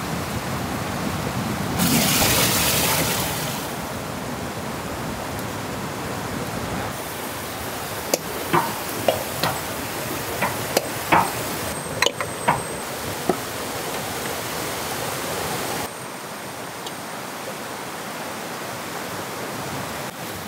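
Steady rush of river rapids, louder for about a second and a half shortly after the start. In the middle, about ten sharp clinks of glass jars being set down in an aluminium pot.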